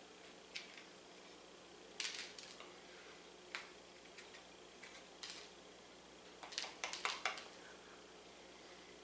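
Faint, intermittent scraping and clicking of a small knife digging the seeds and veins out of a halved jalapeño, in short bursts with a busier run about two-thirds of the way through.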